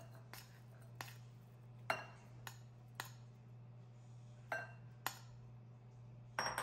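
A bowl and spatula clinking and knocking against a glass mixing bowl as cubed mango is tipped and scraped into it: about eight separate clinks, a few with a short ring, over a low steady hum.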